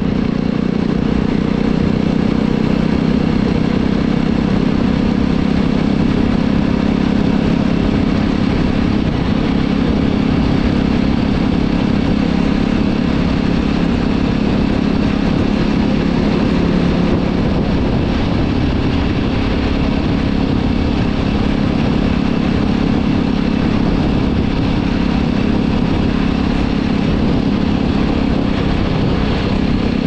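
Jawa Classic motorcycle's single-cylinder engine and exhaust running steadily while the bike cruises at an even speed, with no clear revving or gear changes.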